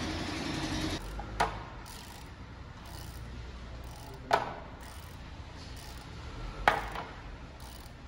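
Three sharp clicks, spaced two to three seconds apart, from a hand handling a motorcycle's plastic front mudguard. A steady noise stops about a second in.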